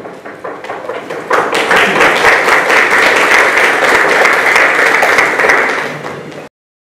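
Audience applauding, swelling about a second in, then cutting off suddenly near the end.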